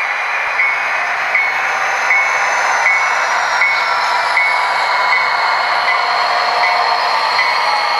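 Train running with a steady rumbling rush, faint pitches slowly falling, and a short high ding repeating about every three-quarters of a second.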